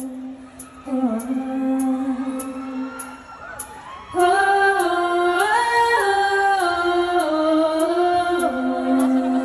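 Singing with music: long held sung notes moving in steps, growing louder and fuller about four seconds in, over a light tick about twice a second.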